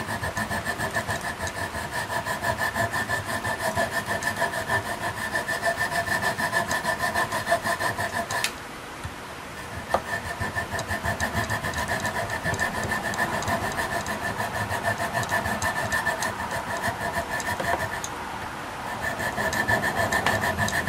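Coping saw cutting through a block of wood with quick back-and-forth strokes, the thin blade ringing as it goes, trimming a small leftover edge off the cut-out toy. The sawing stops briefly about eight seconds in, a single click follows, and then the strokes resume.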